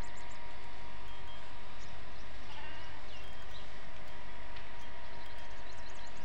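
Open-air ambience at the water's edge: a steady low rumble, with quick runs of high chirps from small birds at the start and again near the end, and a few short rising calls about halfway through.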